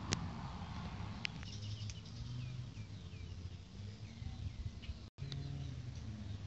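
Small birds chirping in short, repeated falling calls over a steady low rumble. There is a sharp click near the start and another about a second in, and the sound cuts out for an instant about five seconds in.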